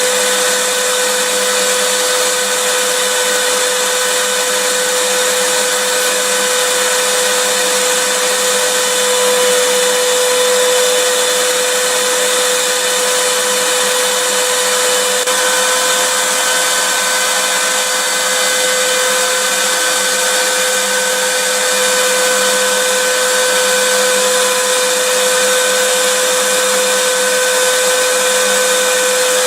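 Vacuum cleaner motor running steadily, a loud even rushing hiss with a constant whine near 500 Hz.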